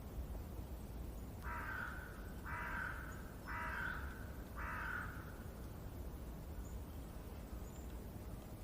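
A crow cawing four times in a row, about one harsh caw a second, over a steady low background hiss.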